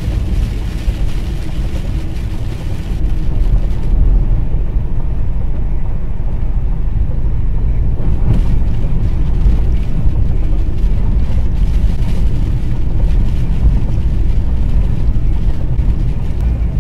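Heavy, steady low rumble inside a Kenworth W900L semi truck's cab at highway speed in high wind: wind buffeting the cab over engine and road noise.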